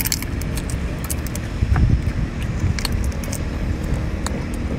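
Hands peeling the shell off a cooked large prawn: scattered sharp clicks and crackles of shell, over a steady low rumble.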